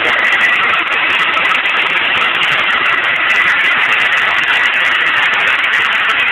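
Hair dryer running steadily: a continuous loud rush of blown air with a faint steady whine.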